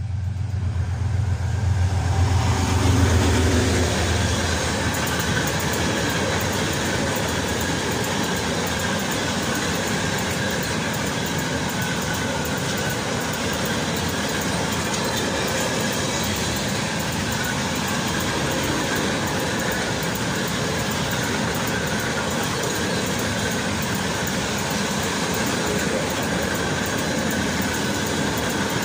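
Freight train passing close by. A low hum is loudest in the first few seconds as the head of the train goes past, then a long string of open-top freight wagons rolls by with steady wheel-on-rail noise.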